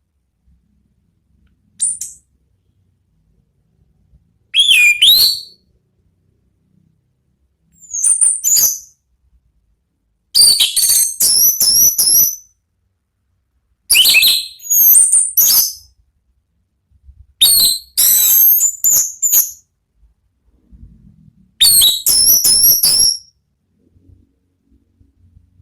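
Orange-headed thrush (anis merah) singing its loud, clear 'ngeplong' song: short, high whistled phrases with quick rising and falling notes, about seven phrases a few seconds apart.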